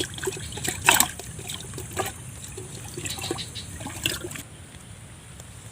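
Water splashing and trickling in a series of short bursts, the strongest about a second in, over a low steady background hiss.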